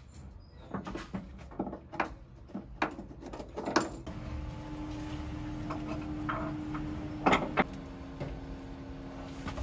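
Scattered sharp metal clanks and knocks from tools and parts being handled while fitting a truck body lift, then a steady hum starting about four seconds in, broken by two loud knocks about three seconds later.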